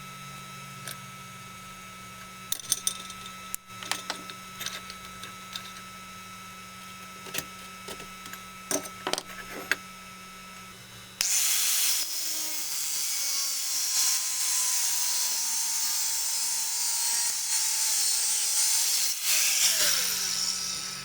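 Metalworking: a few light metal clinks and knocks over a steady hum, then, about eleven seconds in, a loud steady hissing tool noise starts abruptly and runs until near the end.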